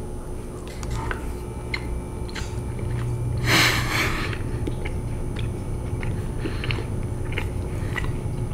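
A person biting into and chewing a slice of savory zucchini bread, with small crunchy clicks from the crust scattered throughout. About three and a half seconds in, a breathy blow out through pursed lips, the loudest sound here.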